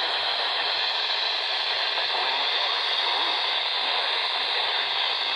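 Steady static hiss from a weather radio receiver, with no clear broadcast coming through.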